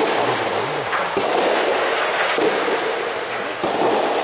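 Sharp, echoing pops of soft tennis balls being struck and bounced, about one a second, over a steady reverberant hall noise.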